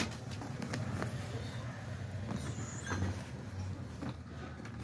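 Faint ticks and scratchy rustles of a shoelace being threaded through the eyelets of a canvas high-top sneaker, over a low steady hum.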